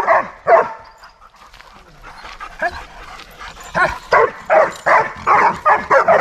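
Doberman barking: a bark or two at first, then after a pause of about three seconds a fast run of barks, two or three a second.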